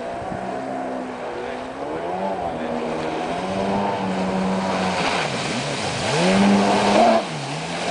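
Yamaha stand-up jet ski's two-stroke engine revving up and down as the rider works the throttle through tight turns, its pitch dropping twice and climbing back. Water spray hisses during the hardest turn near the end, the loudest part.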